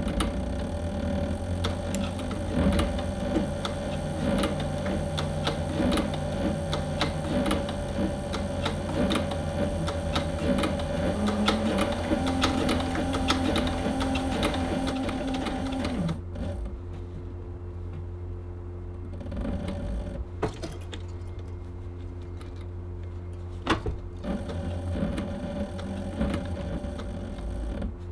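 Cobra Class 3 leather sewing machine stitching through thick vegetable-tanned leather, the needle and hook clattering at a fast steady pace. It stops for several seconds partway through, leaving the motor's low hum and a few single clicks, then starts stitching again near the end.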